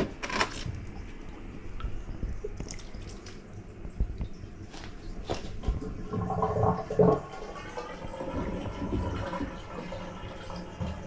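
Reef aquarium water splashing and trickling as a hand lowers a coral colony into the tank and works it into place, with scattered small clicks and knocks, the sharpest at the very start.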